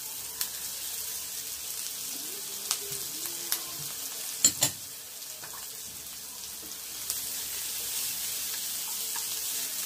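Sliced chilies, bell pepper and spring onion sizzling in butter in a frying pan, a steady hiss. A few sharp clicks of a plate and utensils against the pan cut through it, the loudest a quick pair about four and a half seconds in.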